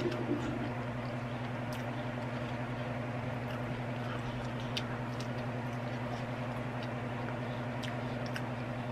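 Steady low hum with scattered faint clicks of French fries being picked out of a paper cup and chewed.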